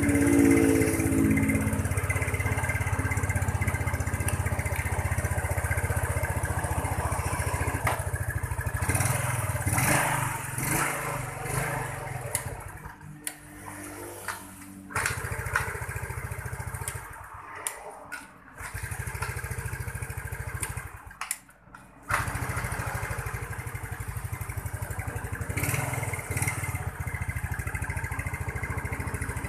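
Yamaha Mio scooter's carburetted single-cylinder engine running, revved up briefly at the start. Between about 12 and 22 seconds it cuts out or nearly dies three or four times, then picks up again and runs on steadily.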